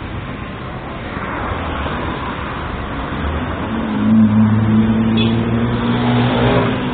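Street traffic noise, with a motor vehicle's engine hum growing loud and steady from about four seconds in, then dropping in pitch as it passes near the end.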